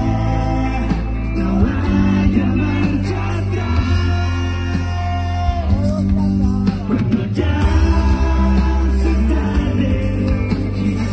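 Pop-rock band playing live through a concert PA: a singer's voice over guitars, bass and drums, with sustained bass notes that change every few seconds. Heard from within the crowd.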